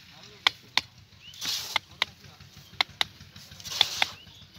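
Hand hammer striking a steel chisel to chip hardened concrete at the base of a rebar column, cleaning the joint surface. About eight sharp, ringing strikes come mostly in quick pairs, with two short scratchy rushes of noise in between.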